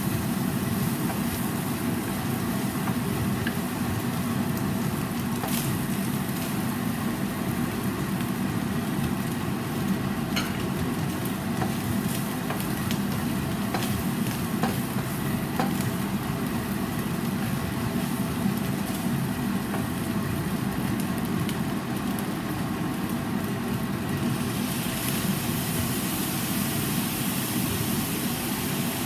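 Stir-fry sizzling in a nonstick frying pan over a gas flame, over a steady low rumble, with a few short taps and scrapes of the spatula. About 24 seconds in, the sizzle turns brighter and hissier as the sauce goes into the pan and steams.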